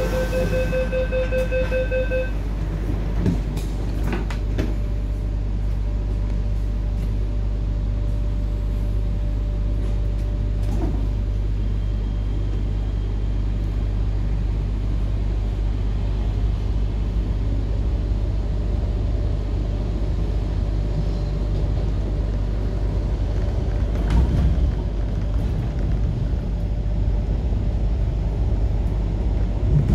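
MTR K-Train door-closing warning beeps, a rapid even series that stops about two seconds in, then the train's steady low running rumble as it moves off, heard from inside the car by the door.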